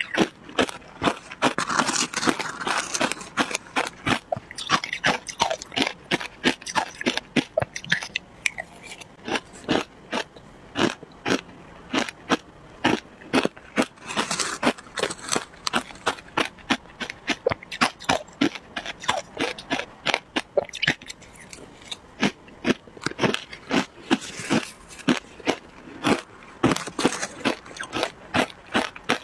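Shaved ice being chewed: a steady run of sharp, crisp crunches, about two or three a second.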